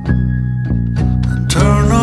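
Background music with evenly struck plucked notes. About one and a half seconds in, the sound turns abruptly fuller and louder, with the running of motorcycle engines coming in under the music.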